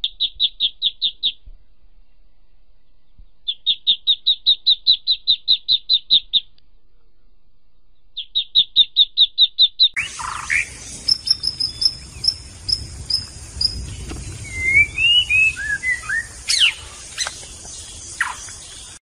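Greylag goslings peeping in three quick runs of high, evenly spaced peeps, about eight a second. About ten seconds in this gives way to an outdoor background with small birds chirping and whistling over a steady low noise.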